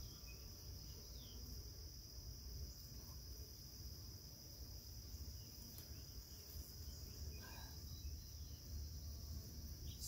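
Faint, steady high-pitched drone of singing insects, over a low hum of honeybees around the opened hive.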